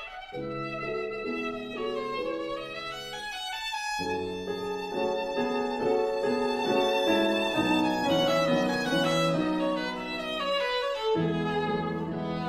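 Background music: a violin-led string melody with held notes over lower sustained string chords.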